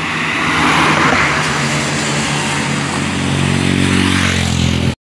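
Road vehicles on the move: a rush of passing tyre and engine noise about a second in, then an approaching vehicle's engine hum growing louder, until the sound cuts off abruptly near the end.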